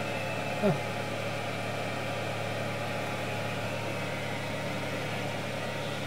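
Steady machinery hum inside a submersible's cabin: a constant low drone over an even hiss. A brief falling voice sound comes less than a second in.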